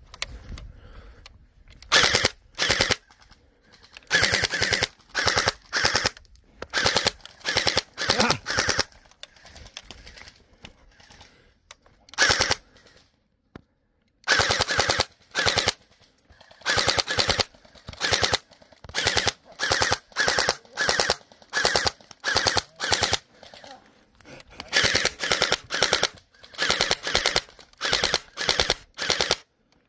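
Gel ball blaster firing in short bursts of rapid shots, roughly one burst a second, with a brief lull about thirteen seconds in.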